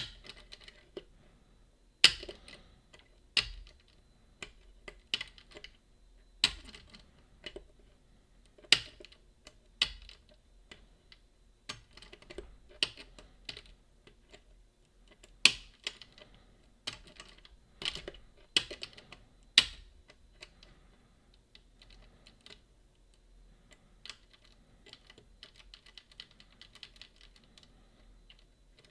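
Irregular sharp metallic clicks and light scratching from lock picks working the levers of a Boda 429 eight-lever deadbolt, with a few much louder clicks among them and softer, quicker ticking in the last third.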